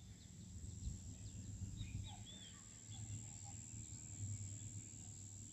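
Birds calling faintly outdoors: scattered short chirps and whistled, slurred notes, over a steady low rumble.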